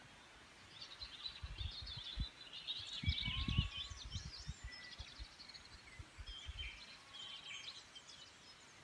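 Several wild birds singing and chirping in quick, overlapping phrases, with irregular low thuds that are loudest about three seconds in.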